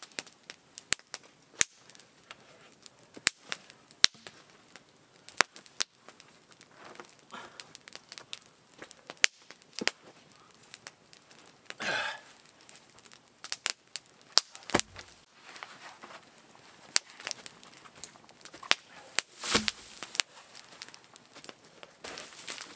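Wood campfire crackling, with scattered sharp pops and snaps at an uneven pace. Twice, about halfway through and again near the end, a longer rustle of dry leaves and wood being moved or stepped on.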